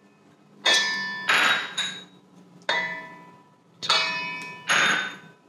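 A ceramic ramekin knocked against the rim of a stainless steel mixing bowl about five times, to shake minced garlic and ginger onto the meat. Each knock sets the bowl ringing with a metallic tone that fades away.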